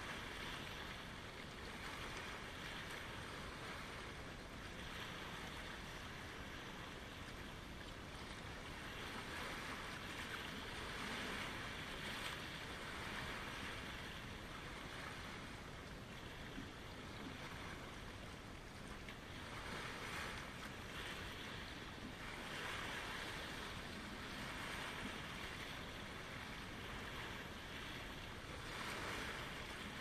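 Small lake waves lapping and washing over a pebble shore, the wash swelling and easing every few seconds.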